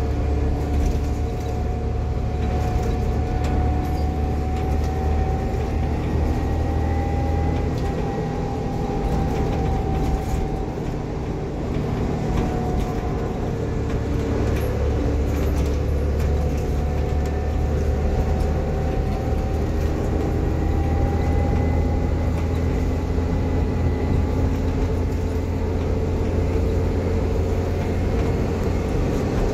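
Diesel bus engine and transmission working under way, a steady low drone with a gearbox whine that rises and falls slowly as the bus gathers speed and eases off.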